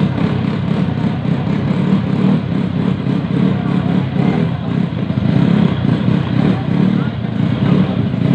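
Small motor scooter engines running and revving unevenly, with crowd voices in the background.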